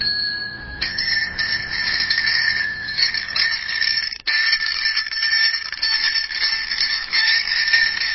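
Bicycle bell ringing: one ring, then rapid continuous ringing in a fast trill, with a brief break about four seconds in.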